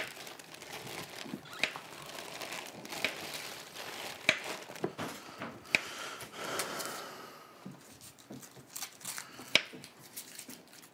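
Kitchen knife cutting up a watermelon on a cutting board, sawing through the rind with sharp knocks of the blade on the board now and then.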